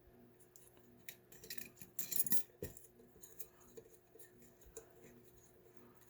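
Metal clicks and clinks as a deadbolt lock and picking tools are handled in a vise, with a cluster of sharp clicks about two seconds in and a single knock just after.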